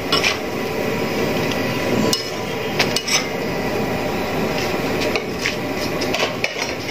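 A metal utensil clinks and knocks against a hot griddle now and then as Kerala porottas are turned, over a steady hiss from the pan.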